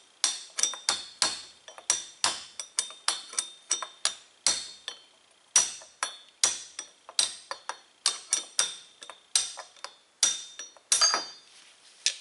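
Hammer tapping a steel punch against the lip of a steel tapered bearing race in an aluminum Porsche 944 front hub: light, quick metallic taps, about two to three a second, each with a short ring, the race already nearly loose and taking very little force. Near the end a longer ringing clatter as the race comes free.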